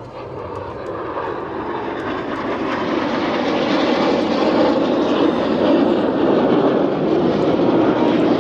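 Red Arrows BAE Hawk jets passing over in formation: jet engine noise that grows steadily louder over the first few seconds and then stays loud.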